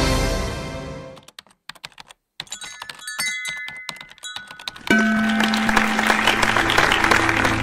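Music fades out, then a sparse run of sharp typing keystroke clicks sounds as a logo's letters appear one by one. About five seconds in, a loud sustained musical chord comes in and holds.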